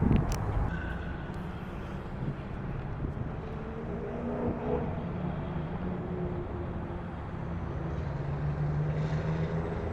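An engine running steadily with a low hum. A burst of wind noise on the microphone dies away in the first second.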